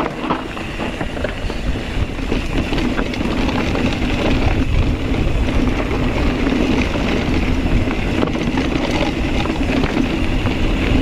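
Riding a Kona Process 134 mountain bike down a dirt trail: wind rushing over the microphone, tyres on dirt, and the bike rattling over bumps. The noise gets louder about halfway through as the speed builds.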